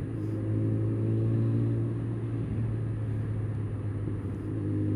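Suzuki Bandit 650 S inline-four engine running at a steady low speed while filtering through slow traffic, heard from the rider's seat. The engine note dips slightly in the middle and picks up again near the end.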